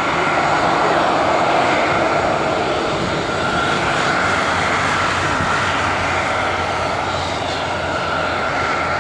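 Airbus A319 jet engines at taxi power as the airliner rolls past: a steady rushing noise with a constant whine over it, easing slightly near the end.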